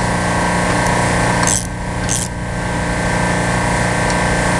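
Steady hum of running machinery, with two short metallic clinks of a tool against metal about a second and a half and two seconds in.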